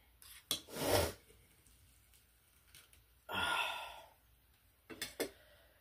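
A person takes a sharp breath about a second in, then lets out a long breathy sigh a little past the middle. A few faint clicks follow near the end.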